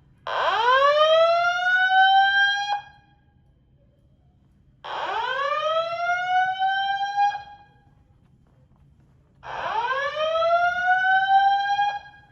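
Fire alarm evacuation signal sounding a slow whoop. Three loud rising tones, each sweeping up over about two and a half seconds and levelling off before cutting out, repeat about every four and a half seconds.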